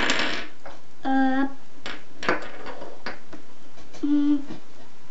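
Two short held hums from a voice, about a second in and again near the end, with a few light clicks of plastic linking cubes being handled on a wooden table. A brief breathy hiss at the start.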